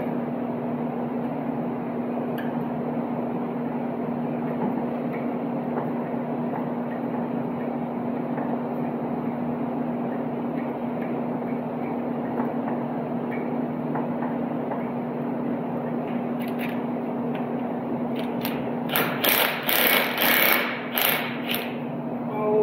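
Steady machine hum. Near the end a cordless impact wrench hammers in several short bursts on a cross-threaded exhaust bolt in a heated cylinder head, trying to break it loose.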